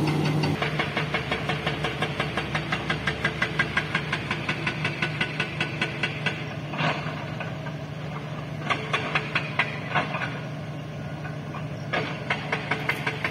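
An engine idling steadily, with a regular ticking pulse of about four a second over a low hum.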